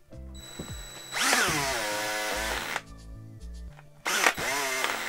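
DeWalt DCD780 18V cordless drill/driver run twice on the trigger, each run about a second and a half, its motor whine sweeping in pitch and then levelling off. The drill is faulty: it overheats badly around the motor, which the owner puts down to a damaged rotor.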